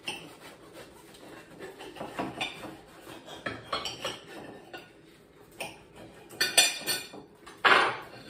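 Knives and forks scraping and clinking on ceramic plates while cutting through crispy deep-fried calzones, in short irregular strokes, with a few louder clatters near the end.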